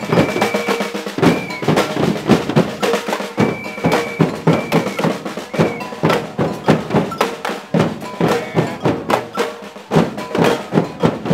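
Street percussion band drumming on metal bins and drums, a fast, dense run of strokes. Several short, high, held tones sound over it in the first half.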